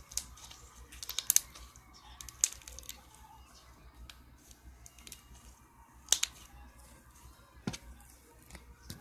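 Hands working slime, with a few scattered sharp clicks and pops as it is pressed and stretched.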